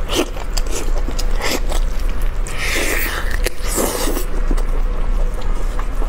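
Close-miked eating sounds of a person biting and chewing red-braised beef rib meat off the bone: irregular wet smacks and clicks, busiest about three to four seconds in.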